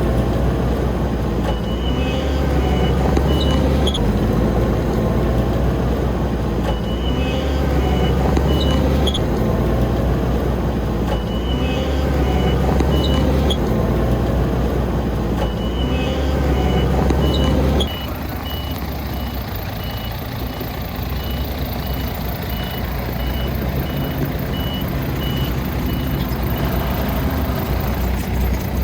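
Heavy construction machine's diesel engine working under load, surging in repeated cycles, with a reversing alarm beeping in spells and then steadily, at about one beep a second. About two-thirds of the way through, the engine sound drops abruptly to a quieter run while the beeping carries on.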